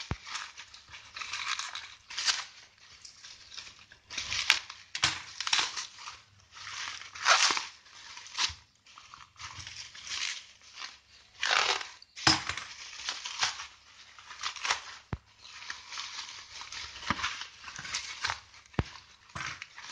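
Plastic bubble wrap crinkling and rustling in irregular bursts as hands pull a parcel open, with a few sharp clicks.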